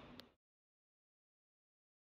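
Near silence: a faint click right at the start, then the sound track drops to complete digital silence.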